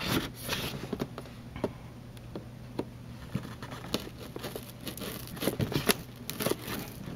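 Fingernails picking and tearing at a taped cardboard box: irregular scratching, crackling and small clicks, with a few sharper snaps near the end.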